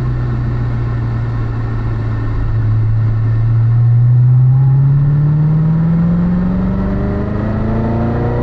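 Corvette Z06's supercharged V8 pulling in third gear, heard from inside the cabin: the engine holds a steady low note at about 2,000 rpm through a slow corner, then from about four seconds in rises smoothly toward 3,500 rpm as the car accelerates hard onto a straight.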